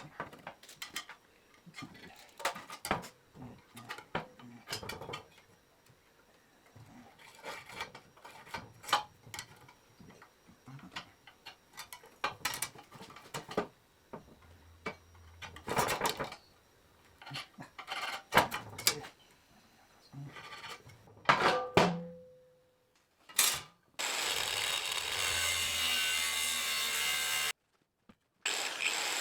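Irregular knocks, clanks and scrapes of steel parts being handled and worked, with one harder strike about 21 seconds in that rings briefly. Near the end a loud, steady, harsh noise from a metalworking tool starts, cuts off suddenly and starts again.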